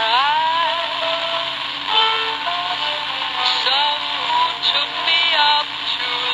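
Electra HT8100 pocket transistor radio playing a long-distance AM broadcast of CFZM: a singer's voice, wavering with vibrato, sings in phrases over music. A steady background hiss runs under it.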